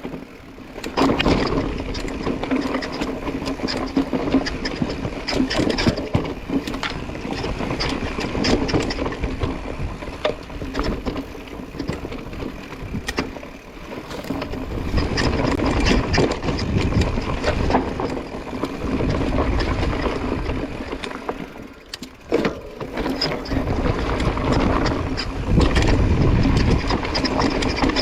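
Mountain bike riding a dirt trail, heard through an action camera: a steady rush of tyres on the ground and wind on the microphone, with frequent rattles and clacks from the bike over bumps. The noise eases briefly about three-quarters of the way through.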